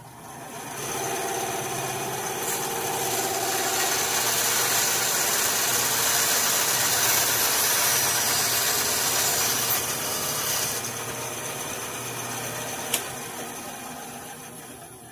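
Benchtop bandsaw switched on with a click and running up to speed, its blade then cutting through a wooden block and 3/8-inch dowel for about eight seconds to trim the dowel flush. The sound then fades gradually as the saw winds down, with a sharp click near the end.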